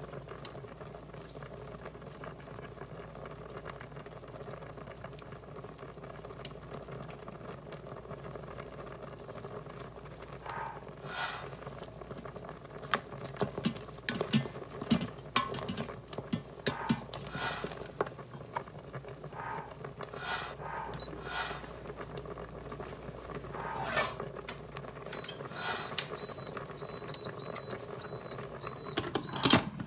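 Instant Pot's stainless steel lid being set on the pot and turned to lock: a run of clicks and knocks over a steady low hum. Near the end a thin, steady high tone sounds.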